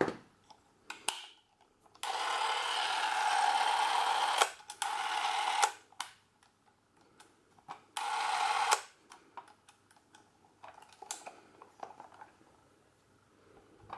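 Bauer C 6 makro Super 8 camera's motor and film transport running in three short bursts: about two and a half seconds, then about a second, then about a second. Each run starts and stops with a click, and there is light handling clatter in between.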